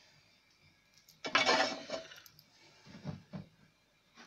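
A clink of metal being handled, lasting under a second, about a second in, followed by a couple of softer knocks.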